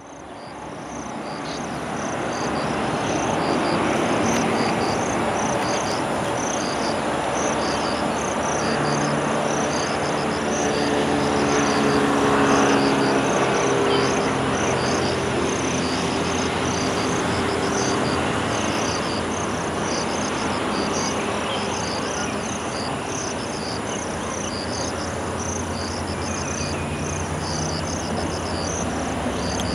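Outdoor ambience fading in: insects chirp in a steady repeating pattern over a constant low rumble. An engine hum swells and fades in the middle. Near the end the low hum of a distant diesel local train grows as it approaches.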